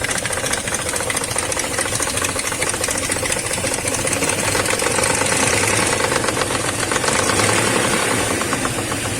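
BMW M62B35 3.5-litre V8 running with a loud, rapid clattering knock from the timing chain. The chain, slack because its tensioner had snapped and got no oil, is slapping and rubbing against the timing covers.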